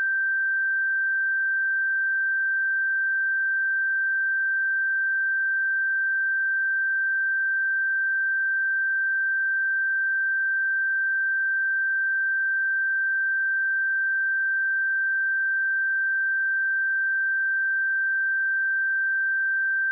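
A pure sine test tone at 1566 Hz, one steady unbroken pitch at constant level.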